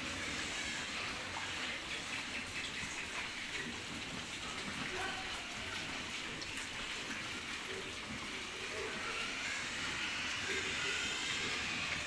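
A pen of pigs eating side by side at a feed trough: a steady, continuous din of chomping and jostling.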